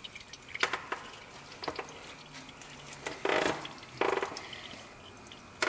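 Oil filter and tools handled during an oil change: several sharp metal clinks, then two short scraping sounds a little past halfway.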